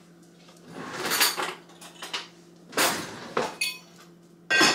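Kitchen dishes and utensils clattering: several separate knocks and clinks, one with a brief metallic ring, and the loudest near the end.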